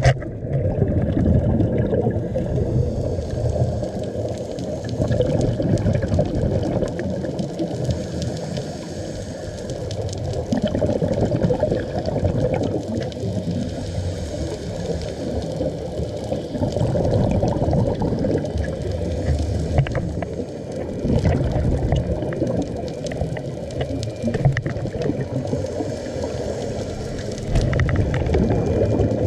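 Underwater sound of a scuba diver breathing through a regulator, with exhaled bubbles gurgling past the camera in surges about every five or six seconds.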